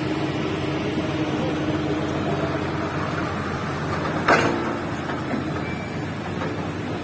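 Hydraulic excavator engine running steadily, with a sharp metallic knock about four seconds in and a lighter one a second later.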